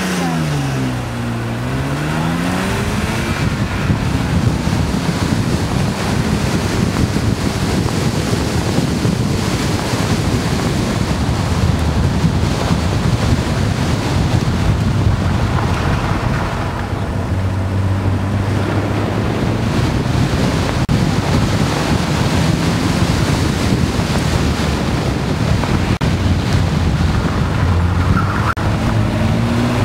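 BMW E36 323i's straight-six engine, its revs falling and rising again, then the car on the move with heavy wind buffeting on the microphone over the engine and tyres; the revs climb once more near the end.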